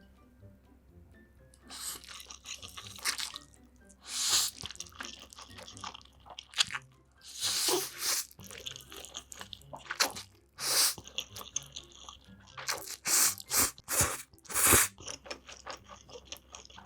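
Close-miked eating: a run of crunchy bites and chewing, in irregular bursts, over faint background music.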